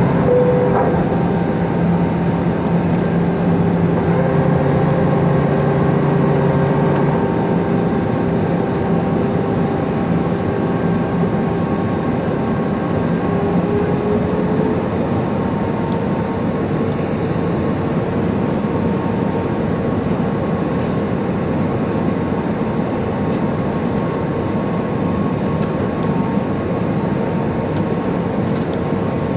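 Airbus A320 cabin noise: a steady rush of airflow with the hum of its CFM56 engines. The engine tones step down a little in the first several seconds, then one rises slightly about halfway through as thrust changes.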